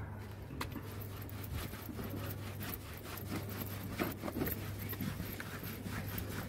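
Microfibre cloth scrubbing a car's roof lining in quick, irregular back-and-forth strokes, a scratchy rubbing sound, with a steady low hum underneath.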